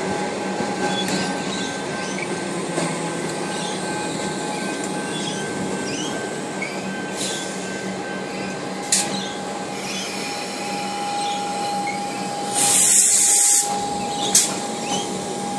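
Comeng suburban electric train running out of the station, its wheels giving a steady high squeal over the rumble. About two-thirds of the way through there is a loud noisy burst lasting about a second, and a couple of sharp clicks.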